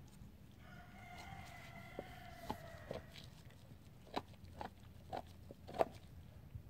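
A Doberman gnawing on a raw deer spine, giving a string of sharp bone cracks in the second half, the loudest a little before the end. A rooster crows in the background for about two and a half seconds near the start.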